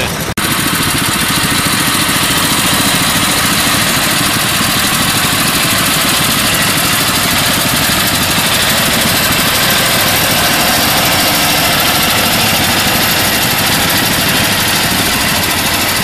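Anzani Iron Horse two-wheeled walking tractor's engine running steadily as it pulls a single-furrow plough, with a fast, even beat. It cuts in abruptly a moment in.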